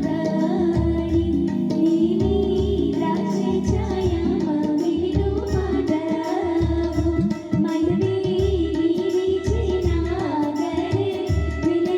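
Gujarati wedding song (lagna geet): a sung melody over a steady, bass-heavy drum beat.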